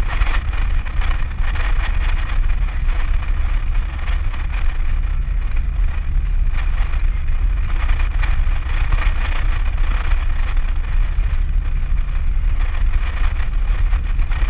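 Nissan Navara ute cruising at a steady speed on a sealed highway, heard from inside the cab: a constant low rumble of engine and road with an even hiss of tyres and wind.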